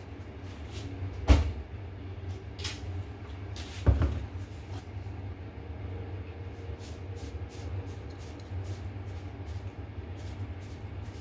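Kitchen handling noise while raw chicken is worked in a glass dish: two sharp knocks, about a second and four seconds in, over a steady low hum, then a run of faint light clicks in the second half.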